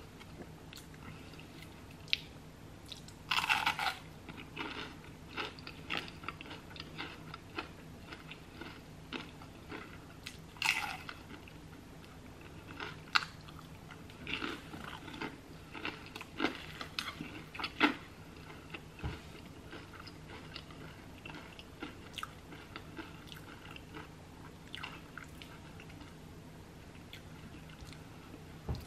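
Close-miked eating: a loud crunchy bite into a breaded onion ring about three seconds in and another crunch near eleven seconds. Then steady chewing with small wet mouth clicks.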